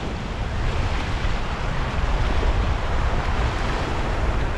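Wind buffeting the microphone with a heavy low rumble over the steady wash of surf.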